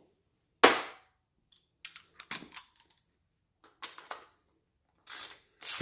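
Ratchet and socket working on a Chevy 305 small-block as the freshly sealed temperature sending unit is tightened: one sharp metal clack under a second in, then short runs of ratchet clicks.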